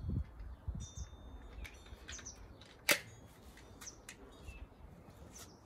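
A single sharp shot from an SMK air pistol about three seconds in, with birds chirping now and then.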